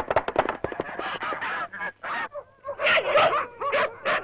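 Rapid clatter of a horse-drawn coach, hooves and wheels, in the first second, followed by a run of wavering, pitched cries.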